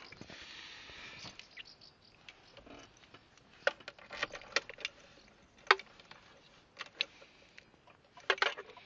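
Scattered clicks and knocks of handling, with a light rustle at first, a few sharper taps through the middle and a quick cluster of them near the end.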